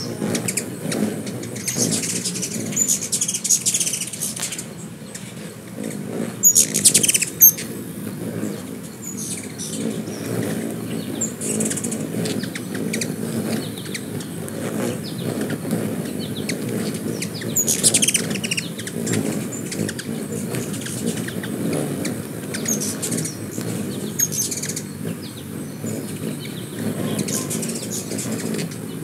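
Several ruby-throated hummingbirds hovering and darting around a feeder: a steady low hum of wingbeats, with short high squeaky chips and chatters from the birds as they chase one another, coming in scattered bursts.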